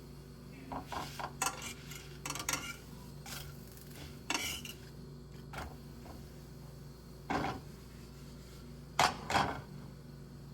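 Kitchen utensils and cookware clinking and clattering in a string of scattered knocks, the loudest two close together near the end.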